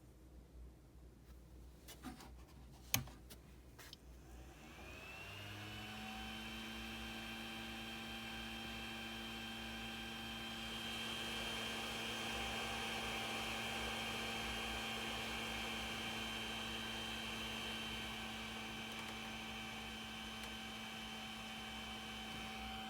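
A sharp click about three seconds in, then the fan of a Creality Ender 3 Pro 3D printer spins up with a rising whine about five seconds in and runs with a steady hum, whine and rough rushing noise. This is the abnormal power-on fan noise that the owner takes for a fan going bad.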